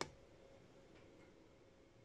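A single sharp click that dies away quickly, then two faint ticks about a second later, over a faint steady hum in near silence.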